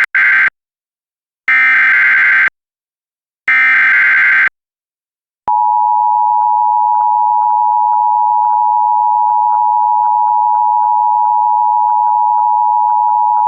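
Emergency Alert System SAME header: the end of one data burst, then two more, each about a second long and a second apart. About five and a half seconds in, the EAS two-tone attention signal (853 and 960 Hz together) starts and holds steady for about eight seconds, marking the start of a tornado warning broadcast.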